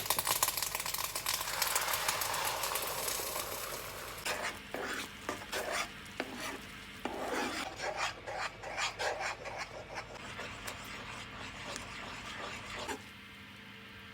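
A spoon or whisk stirring and scraping a milk-pudding mixture around a pot: a dense, continuous rasping for the first few seconds, then quicker irregular strokes that stop about a second before the end.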